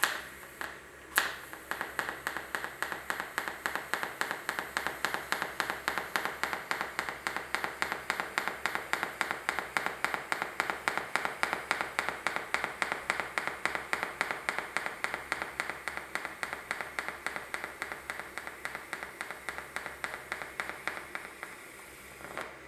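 Pulsed welding arc on stainless steel pipe, crackling in an even beat of about four pulses a second. It strikes at the start, steadies about a second in, and cuts off near the end.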